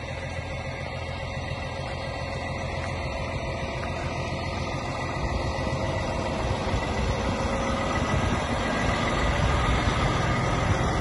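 Heavy truck diesel engine running steadily as a road train rolls slowly past, getting gradually louder.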